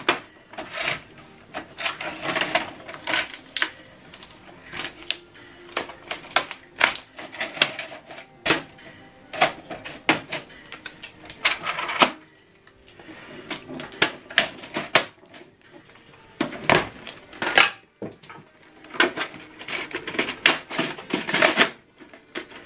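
Packing tape and protective plastic being pulled off an inkjet printer's casing: irregular crackling rustles and sharp clicks, with knocks of the plastic front panel and paper tray.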